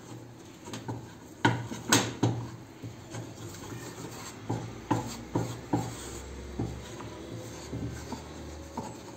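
Wooden spoon scraping and knocking against a non-stick frying pan while stirring and folding a thick, stiffening dough of white wood glue and cornstarch. The knocks come irregularly, with the loudest pair about one and a half to two seconds in.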